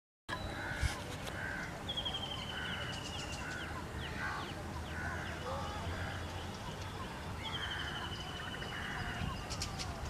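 Wild birds calling. A short honking call repeats about every two-thirds of a second, and a long, falling, trilled whistle comes twice. A sharp click sounds about a second in.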